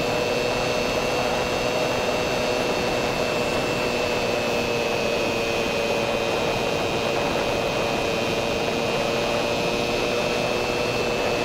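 Ducati 1299 Panigale at a steady highway cruise of about 80 mph: wind rushing over the microphone, with the L-twin engine's steady drone underneath.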